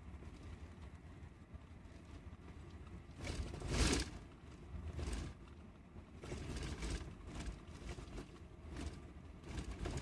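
Road noise heard from inside a moving intercity bus: a steady low rumble with several swelling whooshes of passing traffic, the loudest about four seconds in.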